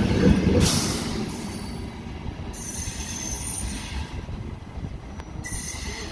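Trenitalia Frecciargento ETR 485 electric tilting train pulling out, its wheels and running gear rumbling on the rails and fading as it draws away. Short spells of high hiss come through the rumble.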